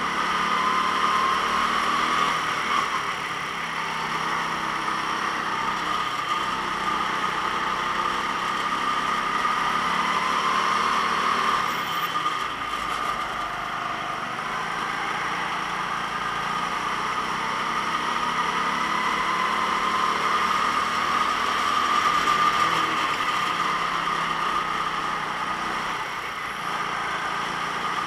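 Go-kart engine running at racing speed, its pitch slowly rising and falling with the throttle, with a few brief dips in level as it lifts off.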